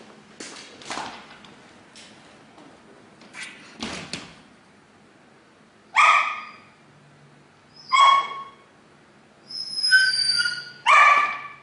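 A dog barking four times, about two seconds apart, the third bark drawn out, after a few soft knocks in the first seconds.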